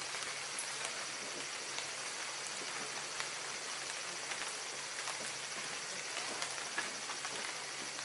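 Steady high outdoor background hiss with faint scattered ticks.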